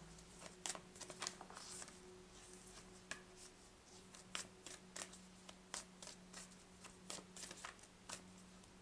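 Faint, irregular clicks and soft slaps of oracle cards being shuffled by hand, over a low steady hum.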